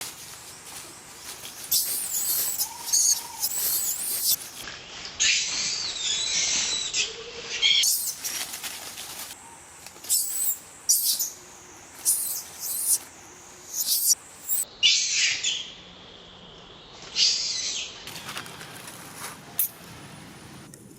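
Monkeys giving a string of high-pitched squeals and screams in short bursts, some held for a second or more, with short pauses between them.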